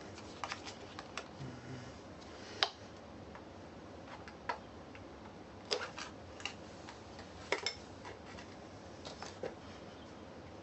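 Scattered light clicks and taps of tools and plastic rim protectors as a small tire is pried off its rim, a few irregular knocks a second, the sharpest about 2.5, 5.5 and 7.5 seconds in.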